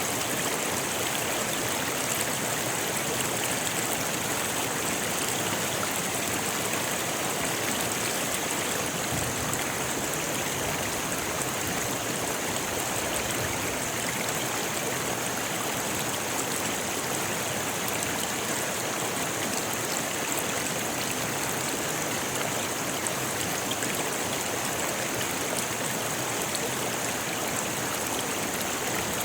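Rocky river flowing, water rushing and splashing steadily over stones.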